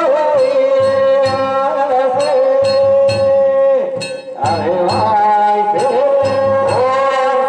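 Danjiri festival music: a singer's long, wavering held notes of a hiki-uta pulling song, each falling away at its end, over an even beat of taiko drum and clanging hand bells about two strokes a second.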